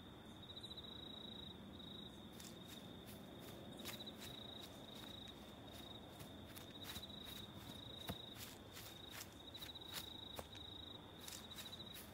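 Quiet, steady high-pitched chirping of crickets, joined about two seconds in by irregular footsteps on a dirt path.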